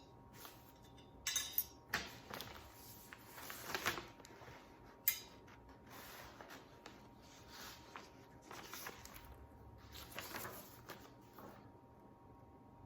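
Handling noises: irregular rustling with light clicks and knocks as small objects are moved about, with one sharp click about five seconds in, over a faint steady hum.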